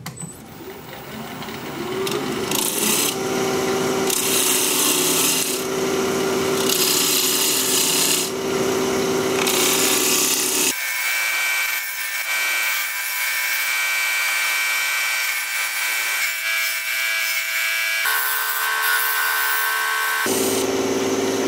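Wood lathe running with a steady motor hum while a hand-held turning tool cuts the outside of a spinning unopened pine cone, each cut a hissing scrape as shavings come off. The sound builds over the first couple of seconds, and its character changes abruptly about eleven seconds in and twice more near the end.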